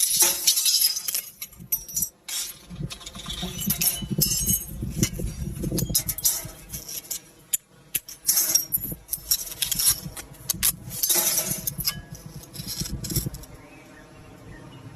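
Irregular clinks, taps and crackly crunching from objects being handled, some of it glassy or jangly, over faint background music. The handling sounds thin out to quieter taps near the end.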